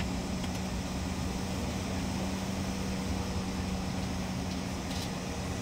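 Cabin noise inside a Bombardier CRJ900 regional jet while it taxis: an even rush of engine and air noise from its rear-mounted turbofans, with a steady low hum running through it.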